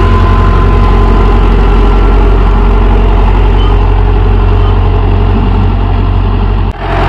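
A Mahindra Yuvo 585 Tech Plus tractor's diesel engine runs steadily under load, pulling a five-tine cultivator through the soil in low gear. The sound breaks off briefly near the end.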